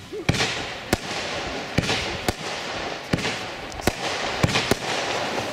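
Panda 'Night Wish' consumer firework battery (cake) firing shot after shot: sharp bangs about every half second to one second, with a steady hiss and crackle between them.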